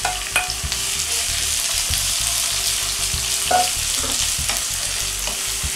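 Chopped tomato, onion and green pepper sizzling in oil in a hot nonstick skillet, with a steady hiss, while a wooden spatula stirring them knocks and scrapes against the pan now and then.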